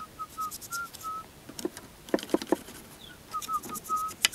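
A man whistling a tune in short notes, pausing for about two seconds in the middle, while a few light clicks and knocks come from tools and parts of a small engine being worked on.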